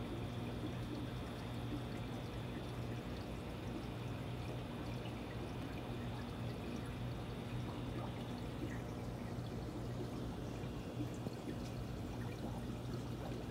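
Steady running water of an aquarium's filtration, with a low steady hum underneath.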